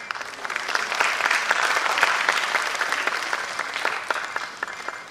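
Audience applauding. The clapping swells in the first second and fades away near the end.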